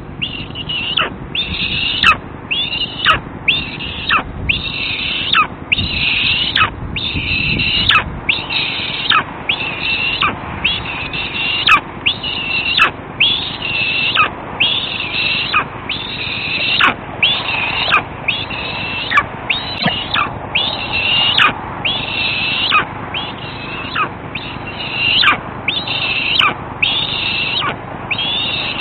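Juvenile eastern imperial eagle begging, calling over and over at about one call a second. Each call opens with a quick downward slide and runs into a rough held note.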